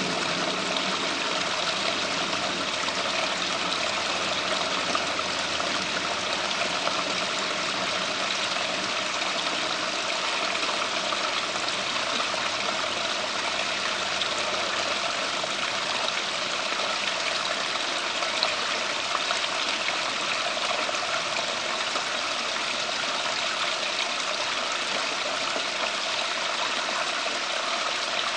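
Steady running and trickling water from a backyard water feature, an even splashing that holds at one level throughout.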